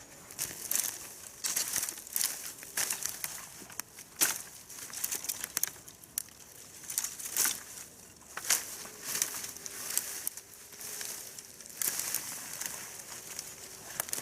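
Dry fallen leaves crunching and rustling in irregular, crackly bursts, some sharper than others, with no steady rhythm.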